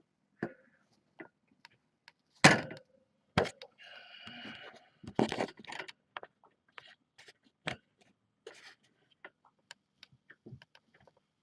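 Handling knocks and scraping close to the microphone as the kitten camera is adjusted. A loud knock comes about two and a half seconds in and another a second later, then a scraping rustle and a run of small taps and clicks.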